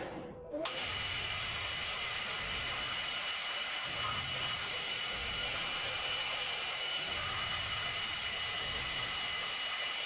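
Metal lathe running and cutting: a steady hissing machining noise with a thin, constant high whine, coming in just under a second in and cutting off abruptly at the end.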